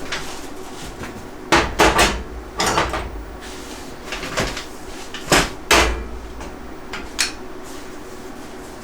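Rack parts being handled during assembly: several sharp knocks and clatters, a quick cluster of three about a second and a half in, a pair past five seconds and a single one near the end.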